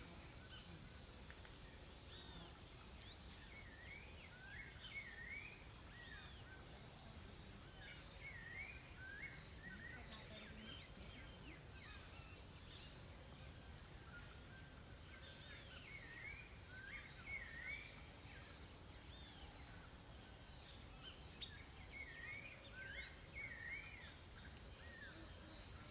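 Birds calling faintly in bouts: short, looping chirps and quick upward whistles repeated several times over a steady outdoor hiss.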